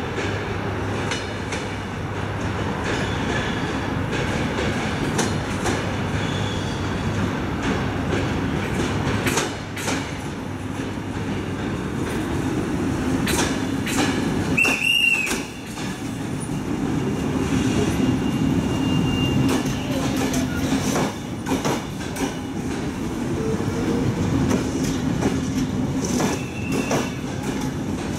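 Romanian Railways passenger coaches rolling slowly past on the station track, with a steady low rumble and wheels clicking over rail joints. The wheels squeal briefly twice, about halfway through and again near the end.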